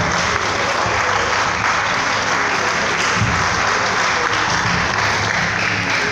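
Audience applauding steadily at the end of a sung carol, with low music continuing underneath.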